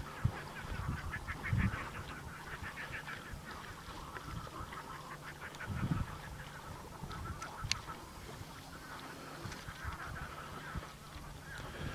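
Waterfowl calling in rapid chattering runs, with a few low thumps on the microphone.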